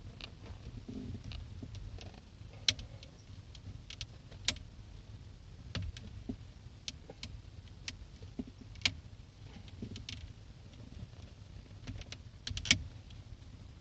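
Irregular sharp clicks and light knocks of small parts and tools being handled, with a few louder clicks spread through, over a low steady rumble.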